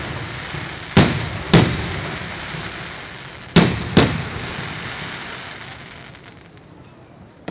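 Fireworks shells bursting overhead: four sharp bangs in two pairs, about half a second apart within each pair, each trailed by a rolling echo that fades away.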